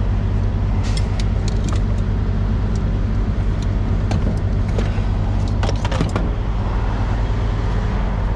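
Steady low hum of an idling engine, with a few sharp metallic clicks and rattles about a second in and again around six seconds in.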